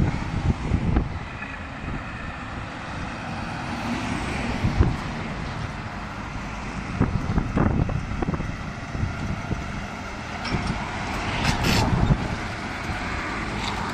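John Deere 9620RX quad-track tractor's diesel engine running as it drives close past, towing a disc harrow, with a lorry passing on the road and wind buffeting the microphone.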